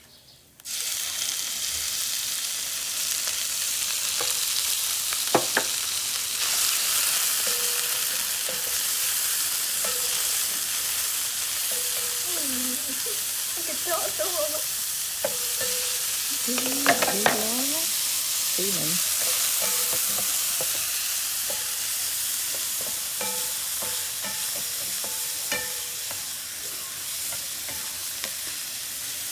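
Hot oil in a wok sizzling as sliced raw food is tipped in, starting suddenly about a second in and frying steadily while it is stirred with a spatula.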